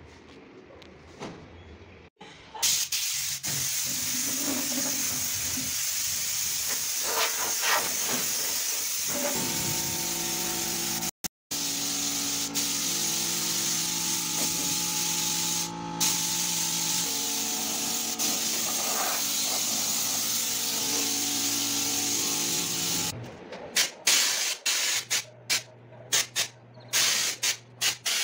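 Compressed air hissing from an air gun, steady for about twenty seconds, then in a series of short spurts near the end. A steady machine hum with several tones runs under the hiss through the middle stretch.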